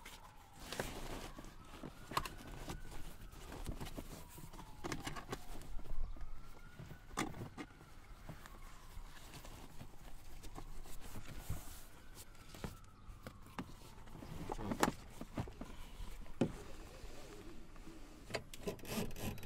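Clicks, knocks and rustling of a child car seat's cover and seat belt being handled and fitted. Behind them a distant siren wails faintly, rising and falling slowly every few seconds.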